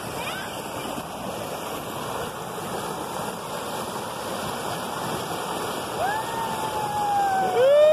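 Shallow river rushing over rocks and a small cascade, a steady hiss of water. About six seconds in, a high voice lets out a long held call that falls slightly, and a second, louder held call starts near the end.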